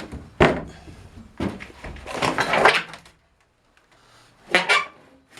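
Wooden fittings being handled: a sharp knock, a second knock, a scraping slide lasting about a second, then a quick double knock near the end, like drawers or small doors being opened and shut.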